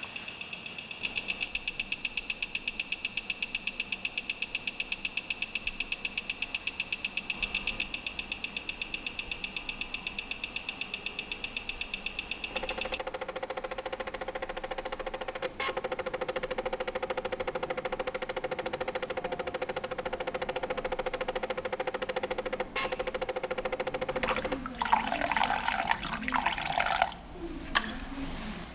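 Rapid, even ticking of the Sellita SW220-1 automatic watch movement as it runs, its tone shifting lower about halfway through. Near the end, a few seconds of irregular handling noise.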